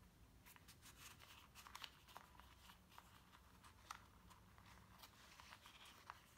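Faint rustling and light scattered ticks of paper and a thin clear plastic sleeve being handled as a card insert is slid into a traveler's notebook dashboard.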